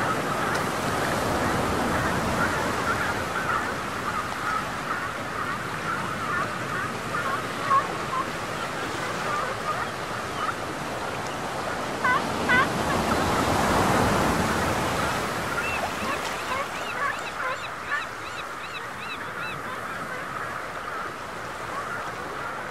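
Water rushing steadily, swelling about two thirds of the way through, under many short squeaky chirping calls. Near the end comes a run of quick, evenly repeated higher chirps, about four a second.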